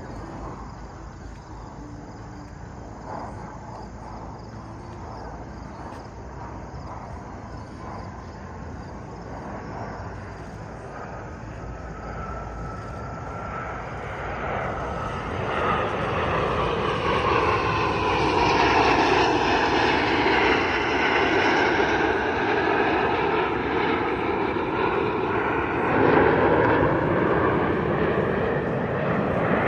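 Airplane engine noise at an airshow, faint at first, then growing much louder about halfway through as the aircraft comes close and passes, with bands of sound sweeping down and back up in pitch while it is loudest.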